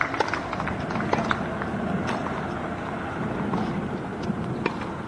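Tennis ball bounced a few times on a hard court before a serve, making short sharp pops over a steady outdoor background hum.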